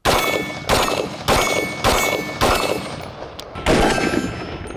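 Semi-automatic M16-family rifle fired six times: five shots about 0.6 s apart, then one more after a slightly longer pause. Each shot is followed by a metallic ringing, as steel targets are hit.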